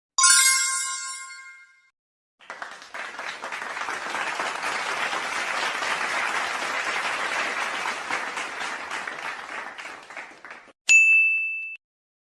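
Sound effects in sequence: a bright ding that rings out and fades over about two seconds, then a crowd applauding for about eight seconds, then a short high ding that cuts off abruptly.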